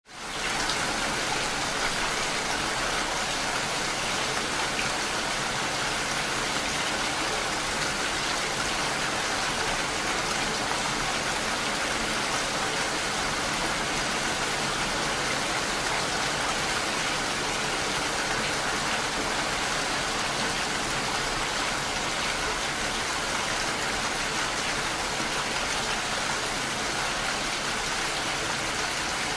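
Steady rain falling, a dense even hiss that fades in at the very start and holds unchanged.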